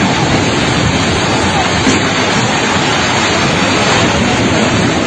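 A loud, steady rushing roar of noise with faint shouting voices in it.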